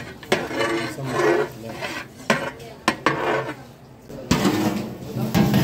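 Metal ladle scraping and clanking against a large metal biryani pot as cooked mutton biryani is turned over and mixed, with a few sharp clinks and a louder scrape near the end.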